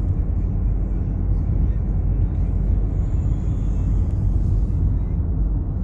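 Steady low vehicle rumble, even throughout with no sudden knocks or changes.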